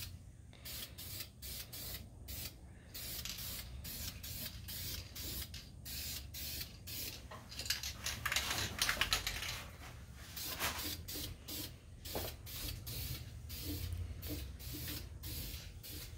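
Aerosol spray-paint can hissing in many short bursts, about one or two a second, with a longer, louder spray about halfway through, as black enamel goes onto the frame rails.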